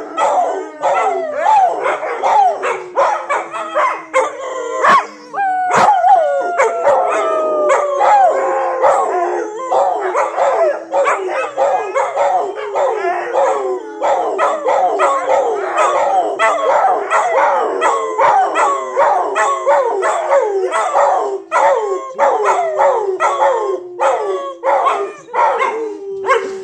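Two dogs, a tan pit bull-type dog and a black-and-white dog, howling together. One long, low howl slowly slides down in pitch while the other dog's many short, falling howls and yips come over it again and again.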